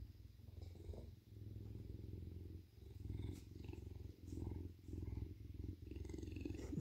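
Bobcat purring: a low pulsing rumble that swells and fades in phrases of about a second, in time with its breaths.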